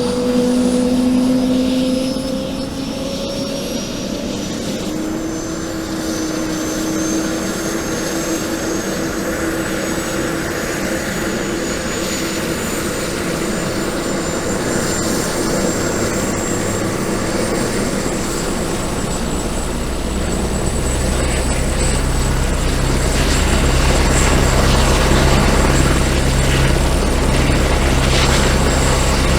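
Helicopter: a high whine and a lower tone slowly rising in pitch over steady engine noise. About two-thirds of the way through, a heavy low rotor beat comes in and the sound grows louder.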